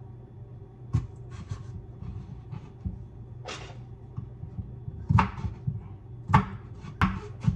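Kitchen handling sounds while cooking: scattered knocks and clatters of utensils or dishes, with a brief scrape about three and a half seconds in, over a steady low hum.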